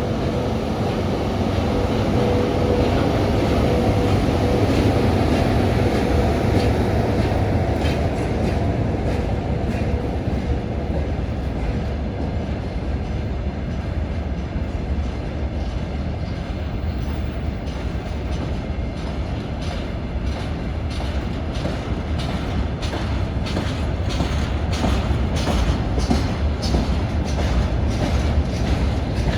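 Freight train rolling past: a continuous rumble of wheels and wagons, with a steady hum in the first few seconds. The wheels click over the rail joints in a repeating rhythm that grows sharper and more frequent in the last ten seconds.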